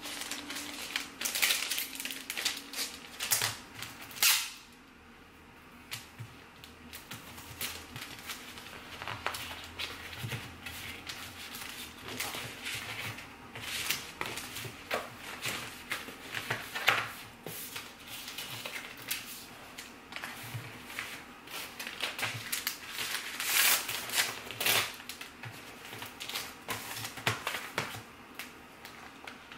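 A clear plastic bag and paper sticker sheets being handled, with repeated crinkling and rustling and sharp crackles. The loudest bursts come in the first few seconds and again around 24 s in, with a short lull around 5 s.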